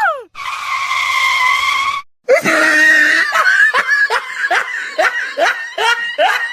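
A voice gives a high scream held for almost two seconds, then breaks into a quick run of short, laughing cries, about three a second.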